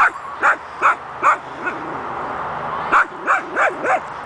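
Long-haired dachshund barking at a feather: four sharp barks in quick succession, a pause of about a second and a half, then a faster run of barks near the end.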